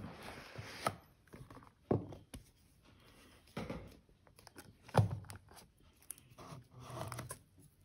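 Handling noise from a cardboard Samsung Galaxy M52 5G box being opened: a soft rustle as the lid comes off, then scattered light taps and knocks, the loudest about five seconds in, as the phone is lifted out of its tray.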